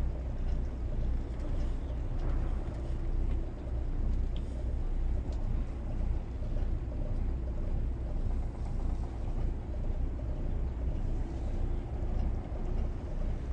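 Twin diesel engines of a Bayliner 4788 motor yacht running at low maneuvering speed, a steady low rumble with a faint constant hum.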